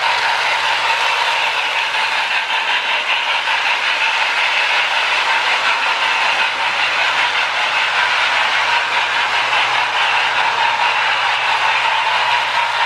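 Marx Sound O Power tender's electronic steam-chuff hiss, loud and steady, as the Marx 1829 Hudson toy train runs around the track, with a low motor hum underneath; the repaired actuator wheel is picking up current and triggering the sound.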